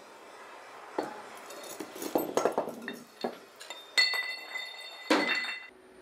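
Steel motor parts clinking and knocking against each other and on a concrete floor as they are handled and set down, a string of sharp knocks with a quick cluster in the middle. One strike about four seconds in leaves a ringing metallic tone that stops abruptly near the end.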